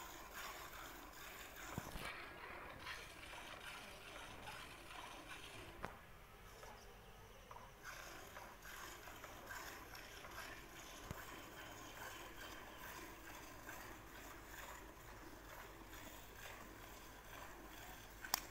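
A cow being hand-milked: faint, steady hissing of milk streams squirting into a steel bucket, with a few short knocks and a sharper click near the end.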